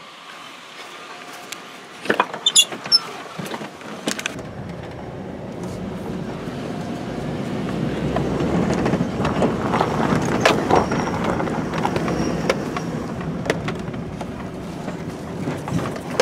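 Pickup truck door clicks and knocks about two to four seconds in, then the running truck's engine and road noise swell as it moves off, loudest around the middle.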